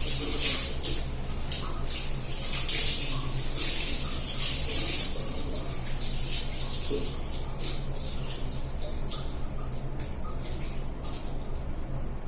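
Tap water splashing irregularly as long hair is rinsed directly under the running tap, thinning out toward the end, over a steady low hum.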